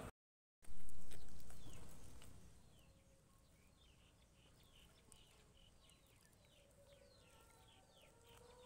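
Just after a brief dropout, a loud sound sets in and fades away over about two seconds. Then birds chirp faintly, a long run of quick falling chirps.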